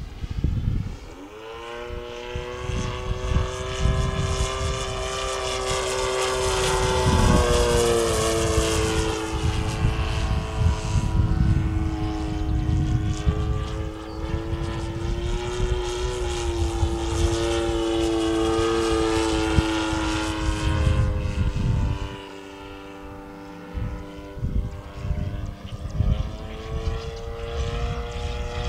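Radio-controlled model airplane's motor and propeller buzzing in flight, its pitch rising and falling as the plane manoeuvres. The sound drops back about three-quarters of the way through and picks up again near the end. Gusty wind rumbles on the microphone.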